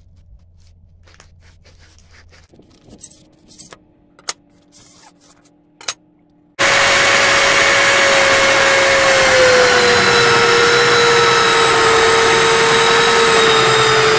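Belt grinder grinding a steel falchion blade. It starts suddenly about six and a half seconds in: a loud, steady grinding noise over a motor tone that sags slightly in pitch under load. Before it come a few light knocks and rustles as the wrapped blades are handled.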